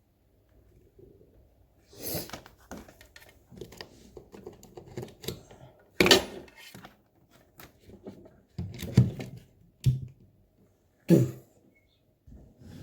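Hands handling equipment: irregular clicks, knocks and rattles, with a sharp knock about six seconds in the loudest and a few more thunks later on.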